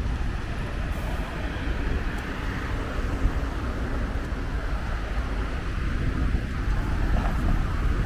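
Steady low rumble of road vehicles, engine and tyre noise running without a break.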